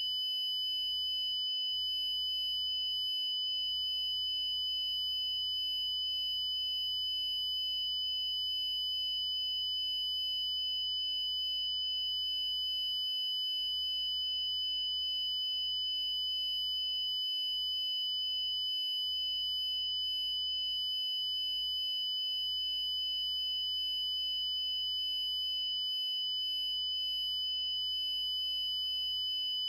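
Steady, unbroken high-pitched electronic sine tone, with a fainter, higher tone above it: an Emergency Alert System-style tone sound effect.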